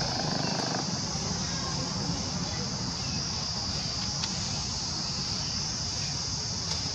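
Steady, high-pitched outdoor insect chorus droning without a break, with a faint low rumble beneath.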